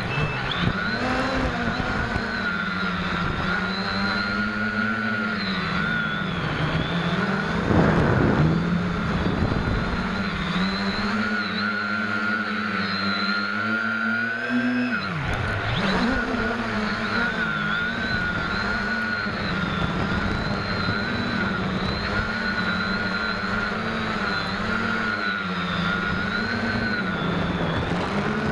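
Electric motors and propellers of an SK450 quadcopter buzzing as picked up by its onboard camera, the pitch rising and falling as the throttle changes through flips and turns. A brief louder burst of noise comes about eight seconds in.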